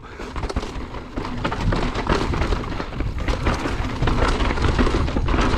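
Kona Process mountain bike descending a dry dirt trail at speed. Wind rushes over the rider-mounted camera's microphone, tyres crunch over dirt, and the frame and chain rattle in quick, irregular clicks. It grows louder and steadier from about four seconds in.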